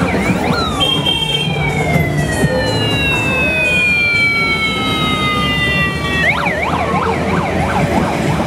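An electronic siren sounds over the low rumble of motorcycle engines. About half a second in it jumps up into a long, slowly falling wail. Some six seconds in it switches to quick rising-and-falling chirps, several a second.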